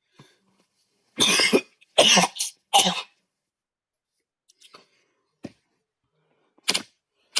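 A person coughing: three coughs in quick succession starting about a second in, then another single cough near the end.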